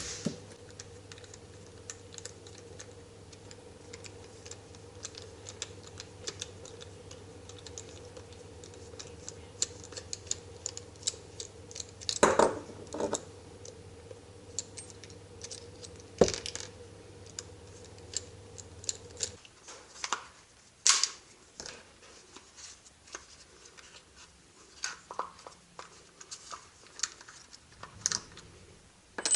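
Light clicks, taps and knocks of hard plastic and small tools being handled during work on a power-tool battery pack. A steady low hum runs under them and stops about two-thirds of the way through.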